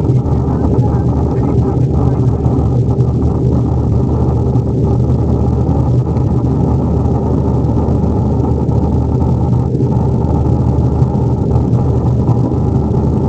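Steady, loud cabin rumble of a Boeing 737-800 in flight: its CFM56 jet engines and the rush of air over the fuselage, heard from inside the cabin.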